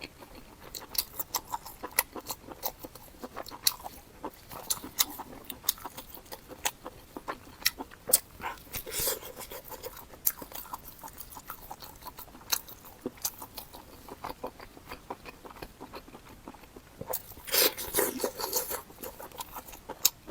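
Pig heart being chewed, close up: many irregular sharp mouth clicks, with a denser, noisier stretch near the end.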